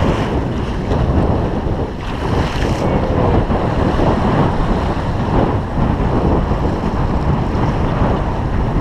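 Waves and spray rushing and splashing along the hull of a 28 ft Pearson Triton sloop under sail through choppy water, with strong wind buffeting the microphone. The noise is loud and steady, heavy in the low end.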